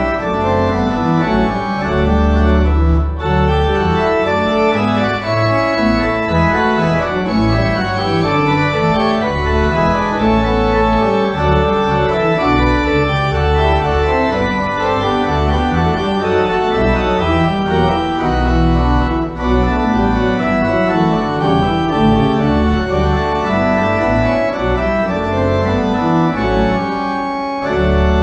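Church organ playing sustained full chords over deep bass notes, opening the service as a prelude.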